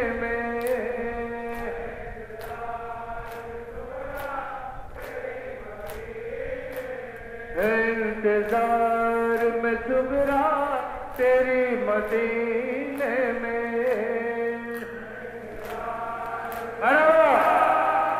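A male noha reciter chanting a Muharram lament into a microphone, with other men's voices joining in, louder near the end. Under it runs a steady beat of slaps from the mourners' chest-beating (matam).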